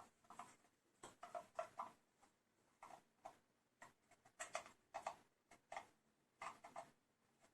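Faint, irregular plastic clicks and rustles, several a second, from ambient-light wiring harnesses being handled and their connectors plugged into the kit's power control box.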